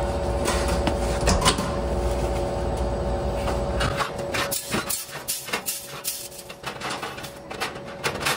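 Stainless-steel wire proofer racks clanking and knocking as they are handled and pulled out of a bread proofer, a series of short metallic knocks from about four seconds in. Under it runs a steady machine hum, with a low rumble that stops about halfway through.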